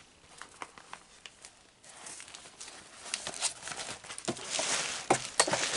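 Rustling and crinkling of an insulated nylon bag being handled and set aside, with scattered light clicks. The rustling grows denser and louder in the second half.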